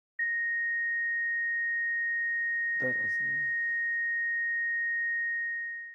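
Hospital patient monitor sounding a flatline: one continuous steady high tone that starts suddenly just after the start, the sign that the patient's heart has stopped. A man sobs briefly about three seconds in.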